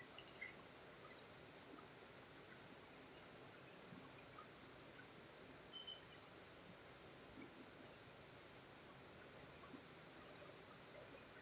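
Near silence: faint outdoor night ambience with soft ticks about once a second.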